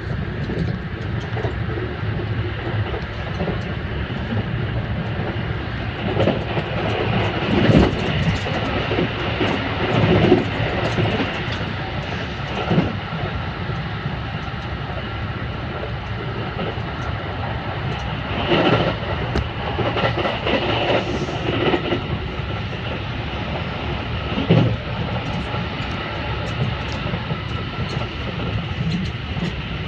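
Haruka airport express train heard from inside the passenger car while running at speed: a steady rumble of wheels on rail, with several brief louder surges.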